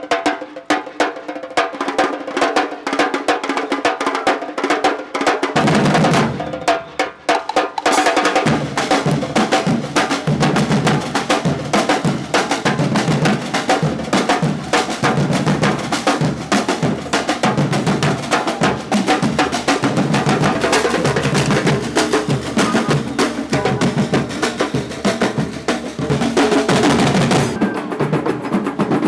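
Batucada drum ensemble playing a dense, driving rhythm on snare drums and large bass drums struck with mallets and sticks; the deep bass drums come in about five seconds in.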